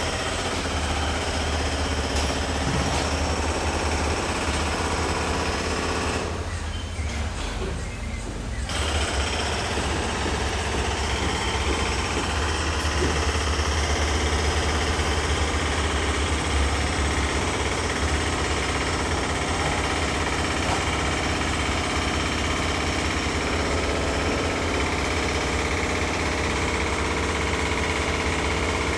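Construction site noise: a steady low machinery rumble under rapid, continuous hammering, with the higher clatter dropping away briefly about six seconds in before picking up again.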